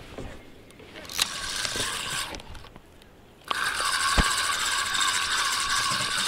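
A fishing reel being cranked: a short spell of winding about a second in, then steady winding from about halfway through.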